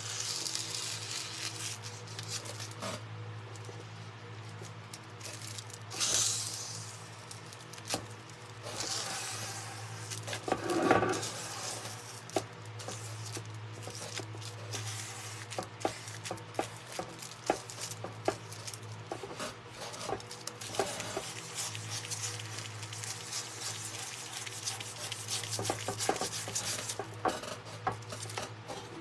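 Rubbing, brushing and light tapping of hands and a small tool on a decoupaged metal tray, with many small clicks, a brief hiss about six seconds in and a louder scuff about eleven seconds in, over a steady low hum.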